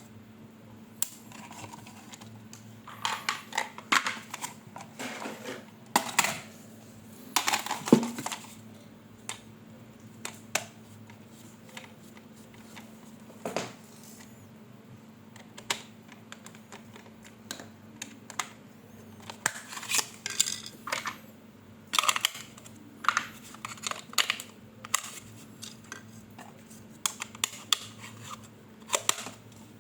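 Hands handling plastic packaging and toy parts: irregular clicks, taps and short rustling scrapes, some in quick clusters, with the loudest snap about eight seconds in.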